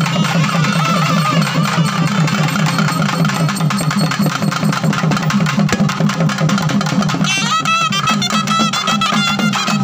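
Music driven by fast, continuous drumming. About seven seconds in, a high wavering melody comes in over the drums.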